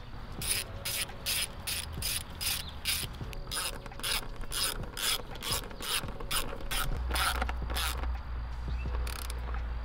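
Hand ratchet clicking in quick, even strokes, about two to three clicks a second, as a fastener is tightened gently. The clicking stops about eight seconds in.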